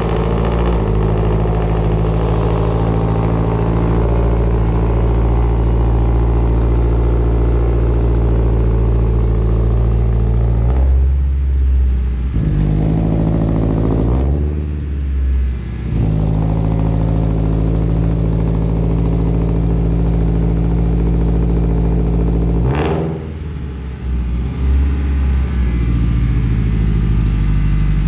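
2022 Toyota GR86's 2.4-litre flat-four running through an aftermarket JDL cat-back exhaust, idling steadily, with a couple of short revs partway through and a sudden change near the end before it settles back to idle.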